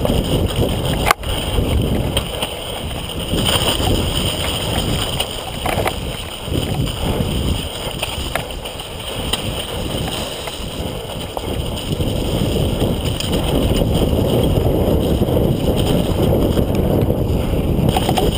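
Mountain bike riding fast down a wet, muddy forest trail, heard through a GoPro: a steady rush of tyres on mud and wind on the microphone. Occasional knocks come from the bike over bumps, a sharp one about a second in.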